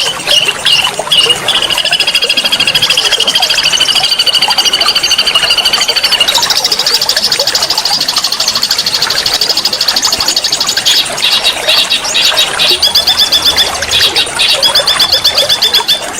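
A songbird singing a fast 'nembak' song of rapid repeated trilled notes. Long unbroken runs give way to shorter choppy phrases in the last few seconds. A steady rush of flowing water runs underneath.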